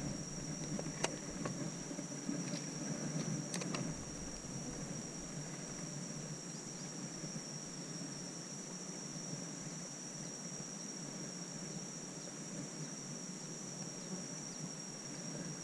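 Outdoor ambience dominated by a steady, high-pitched insect drone, over a low even rumble, with a few sharp clicks in the first few seconds.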